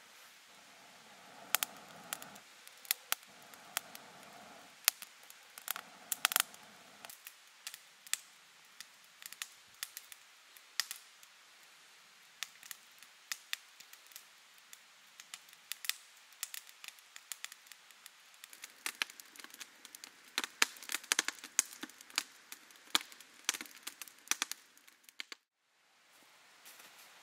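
Wood fire of split kindling and twigs crackling, with many sharp snaps and pops. During the first seven seconds there are four soft rushing bursts, from someone blowing on the young flames. The crackling cuts off abruptly near the end.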